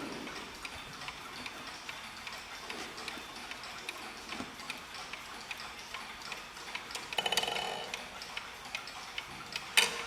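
Several mechanical mantel clocks ticking at once, their ticks overlapping at different rates. About seven seconds in there is a brief rapid rattle, and near the end a single sharp click.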